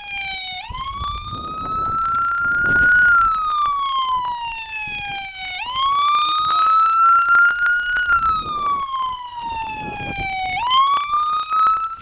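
Police car siren on wail, its pitch rising and falling in slow, even cycles of about five seconds each.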